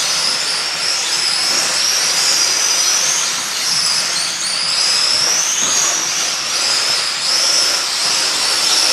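Several electric radio-controlled model racing cars running flat out, their motors giving a high whine that rises and falls as they accelerate and slow for corners, over a steady hiss.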